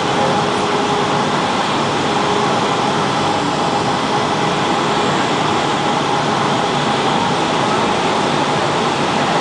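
Boeing 757 cabin noise on the landing approach: the turbofan engines and the rushing airflow heard through the fuselage, a steady, unbroken noise with a thin, held whine running through it.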